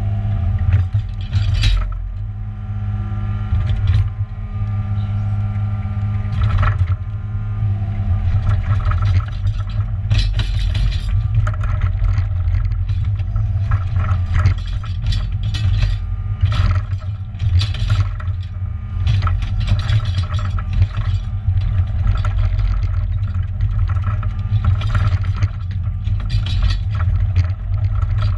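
New Holland excavator's diesel engine running steadily under load, with the bucket scraping and knocking through soil and stones again and again.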